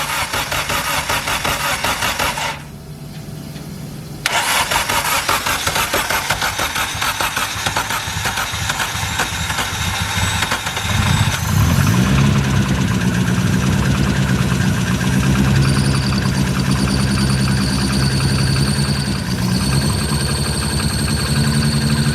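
Freshly rebuilt Toyota Starlet 4E-FTE turbo four-cylinder being cranked on the starter: it cranks, pauses briefly, cranks again for several seconds, then catches about halfway through and runs steadily at idle.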